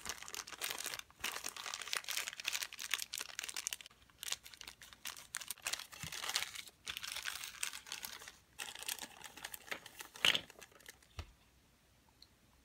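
Thin clear plastic packaging crinkling and rustling in irregular bursts as it is handled and unwrapped, with one louder crackle near the end.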